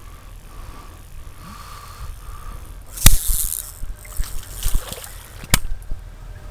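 Sharp clicks and knocks of a fishing rod and spinning reel being handled close to the microphone: one loud click about three seconds in, a few lighter knocks, then another sharp click near the end, over a low steady rumble.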